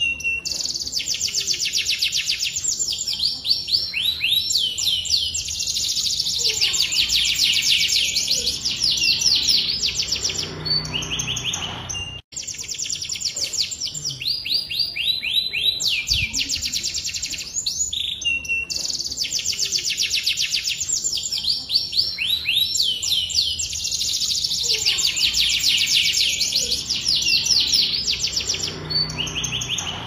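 Domestic canary singing a long, vigorous song of fast rolling trills, chirps and quick pitch sweeps. A short gap cuts in about twelve seconds in, and the song passage then repeats.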